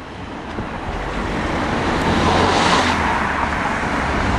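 Street traffic: a car driving past on the road, its tyre and engine noise swelling to its loudest about two and a half seconds in over a steady low hum.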